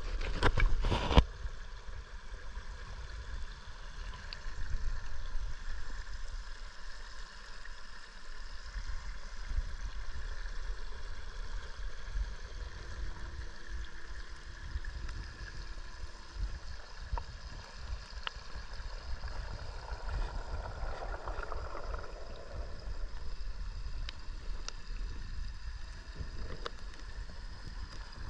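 Steady water circulation in a large reef aquarium, heard underwater: a low rumble with gurgling, hissing flow. A few loud knocks in the first second or so.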